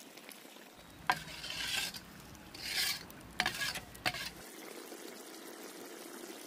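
A metal ladle stirring thick mutton gravy in a large kadai as ground masala paste is mixed in: two scraping strokes across the pan, then a few sharp clinks of the ladle against the pan, over a faint sizzle.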